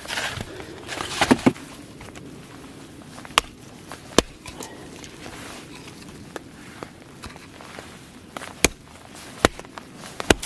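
Rustling, then a handful of sharp single cracks or knocks spaced a second to several seconds apart over a steady background hiss.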